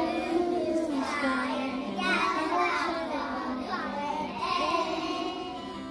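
Children singing, with long held, pitched notes.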